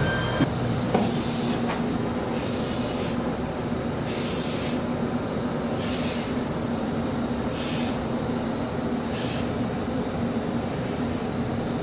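A JR Kyushu 787 series express car standing at a station with its door open, its onboard equipment giving off a steady hum. A higher hiss swells about every one and a half seconds.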